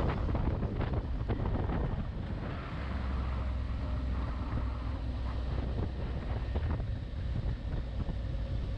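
Wind buffeting a motorcycle-mounted camera's microphone over the low, steady rumble of the motorcycle's engine while riding, with scattered short crackles of wind on the mic.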